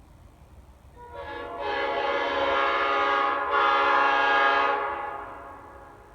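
Mix-cast Nathan Airchime P5A five-chime train horn, fitted with bronze diaphragms, sounding its air-horn chord. It comes in about a second in, breaks briefly midway, and fades out near the end.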